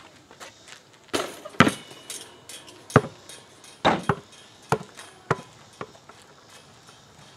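A basketball shot hitting the hoop with a clattering knock about a second in. The ball then bounces on the asphalt driveway, the bounces coming closer together as it settles.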